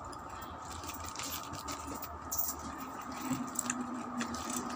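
Clear plastic bag of chicharon (pork rinds) crinkling and rustling as hands reach into it, with scattered small crackles, over a steady background hum.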